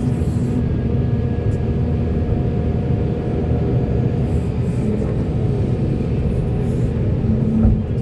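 Heavy diesel machinery running with a steady low rumble, and a single low thump near the end.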